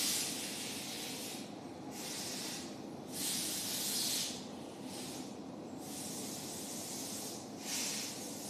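Breathing close to the microphone, heard as about four soft bursts of hissing air, each roughly a second long, a couple of seconds apart.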